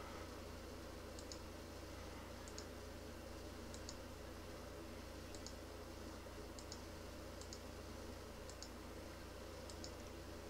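Faint computer mouse clicks, a quick press-and-release pair about once a second, as the mouse button is clicked repeatedly to pick points one after another. A low steady hum runs underneath.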